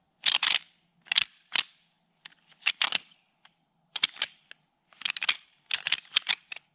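Sharp clicking and clacking of hard objects knocked or handled together, in a dozen or so short, uneven bursts.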